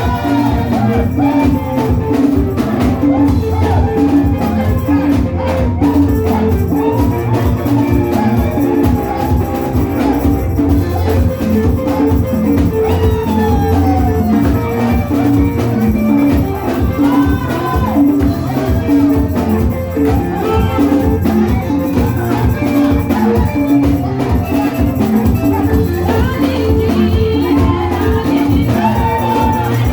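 Loud praise music with a steady, repeating beat and heavy bass, with voices singing over it.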